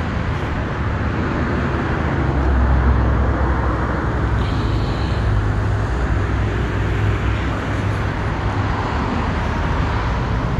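Steady outdoor rumble: wind buffeting the phone's microphone, mixed with the hum of passing road traffic.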